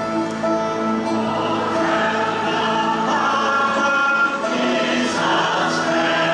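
Large choir of pastors and their wives singing a sacred song in long held chords, swelling brighter about five seconds in.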